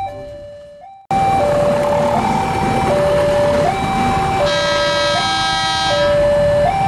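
Railway level-crossing warning alarm, an electronic two-tone signal alternating between a higher and a lower pitch, each held for about three-quarters of a second, sounding for an approaching KRL commuter train. It fades out and cuts back in about a second in. From about four and a half seconds in, a train horn sounds once for about a second and a half.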